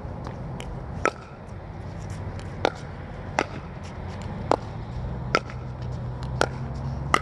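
Pickleball rally: paddles striking the hollow plastic ball with about seven sharp pocks, roughly one a second, with fainter clicks between them over a low steady hum.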